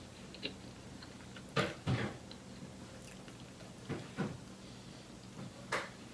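A person eating close to the microphone: a few short, separate bites and chewing sounds from loaded fries with ranch and sour cream, spread through the moment.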